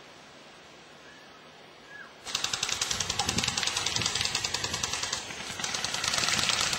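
Airsoft electric rifle firing on full auto: a rapid, even rattle of shots that starts suddenly about two seconds in, drops off briefly after about five seconds, and then goes on.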